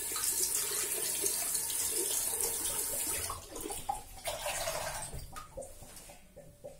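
Water tap running into a bathroom sink, stopping a little past three seconds in, followed by a few brief water sounds.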